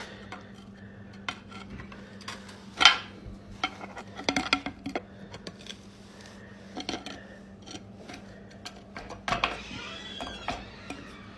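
Metal clinks, scrapes and knocks as a stamped-steel oil pan is pried and worked loose from a Mazda BP 1.8 L engine block, the sharpest knock a little under three seconds in.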